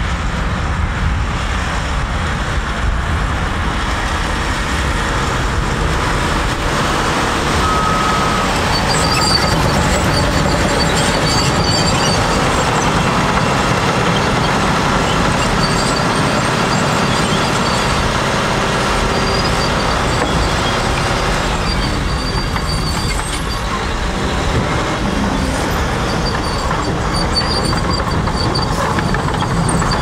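Diesel heavy equipment running steadily: a Volvo articulated dump truck driving with a load of soil and tipping its bed to dump it. A thin high whine comes and goes from about ten seconds in.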